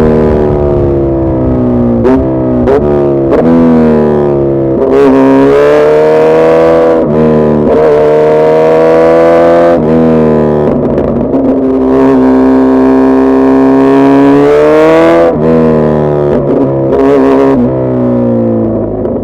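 2026 Suzuki Hayabusa Gen3's inline-four engine and exhaust running loud, its pitch climbing over several seconds and then dropping sharply at each gear change, with a few quick blips of revs near the start.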